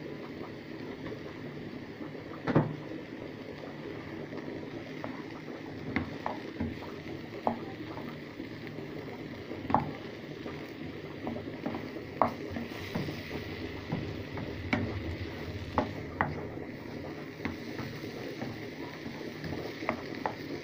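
Wooden spoon stirring chunks of sweet potato and vegetables in a nonstick frying pan, knocking against the pan at irregular intervals, the loudest knock about two and a half seconds in, over a steady hiss.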